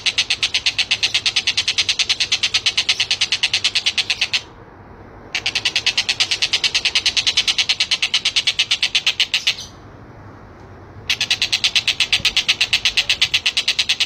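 Tengkek buto (Javan kingfisher) giving its loud rattling call: a rapid, even run of sharp high notes in long bouts, broken twice by short pauses.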